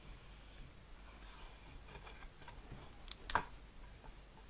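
Faint rubbing of a liquid-glue bottle's sponge tip being dabbed and drawn across paper, with two sharp clicks close together about three seconds in.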